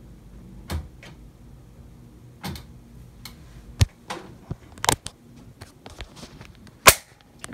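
A handful of separate clicks and knocks, the sharpest near the end. They come from an Epson WorkForce 2650 inkjet printer clicking as it takes in a print job, a first click that sounds as if printing is starting, mixed with the phone being handled and moved.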